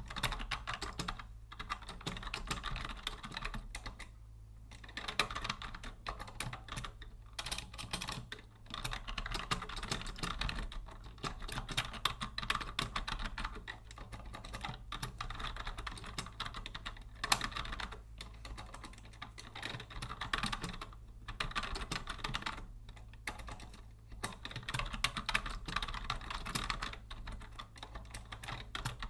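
Typing on a vintage Logitech Deluxe 104 wired keyboard: fast runs of key clicks broken by short pauses every few seconds.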